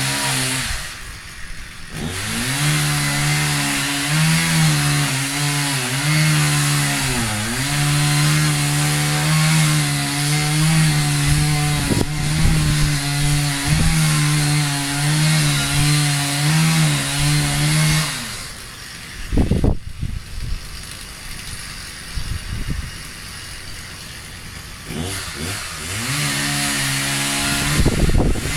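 Chainsaw engine running hard and steady, with brief dips in revs, cutting wood. It drops away for several seconds, when a loud knock sounds, then picks up again near the end.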